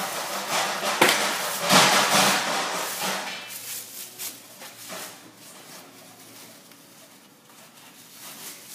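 Handling noise: a sharp knock about a second in, then a loud scraping rush and a few lighter knocks, fading away over the last few seconds.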